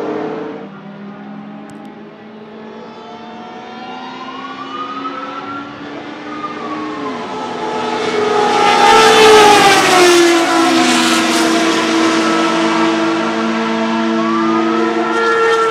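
Lola T92/10 Group C car's Judd GV10 3.5-litre naturally aspirated V10 at racing speed, its revs climbing and dropping as it runs through the gears. It is loudest as it passes, about nine seconds in, then drops in pitch as it pulls away, and the revs climb again near the end.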